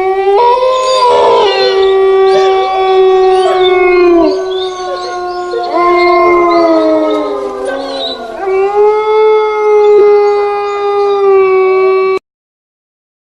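Horror ringtone: a long held, howl-like tone that sags in pitch around four and seven seconds in and climbs back, with higher gliding cries layered over it. It cuts off suddenly about twelve seconds in.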